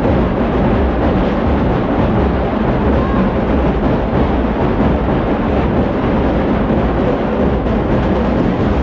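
Loud, continuous festival drumming, heavy in the low end, over the dense din of a large street crowd.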